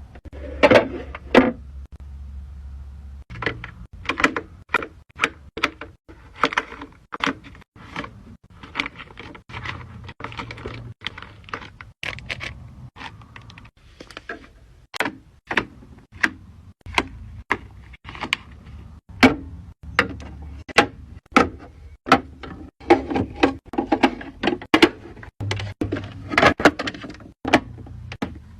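Small skincare bottles and jars being handled and set down one after another in a skincare fridge: a steady run of sharp clicks, taps and knocks, a few each second, with some short clattering clusters.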